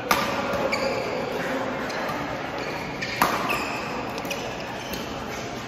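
Badminton rackets hitting a shuttlecock in a doubles rally: two sharp hits about three seconds apart, the second one the loudest, with short shoe squeaks on the court floor in a large hall.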